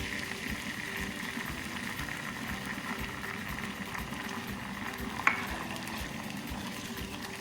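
Barbecue sauce sizzling in a frying pan with hot olive oil and garlic, a steady hiss, with one sharp clink a little after five seconds in.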